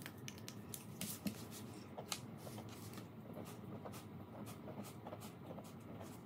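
Faint scratching of a pen writing on a paper calendar on a hard table: a quick, uneven run of small scratches and ticks.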